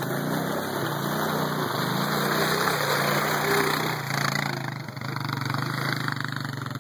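ATV (quad bike) engine revving as it carries two riders through mud, its pitch rising and falling a few times, then settling to a steadier, lower note about two-thirds of the way through.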